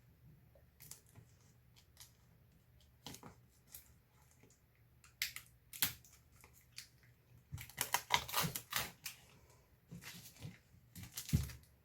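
Packaging being handled and opened by hand: scattered light clicks and taps, then bursts of crinkling and rustling from about halfway and again near the end.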